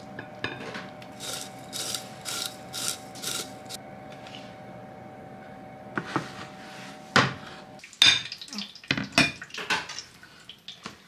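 Tableware being handled while a meal is served: a run of soft scraping strokes, then several sharp clinks and knocks of dishes and utensils being set down.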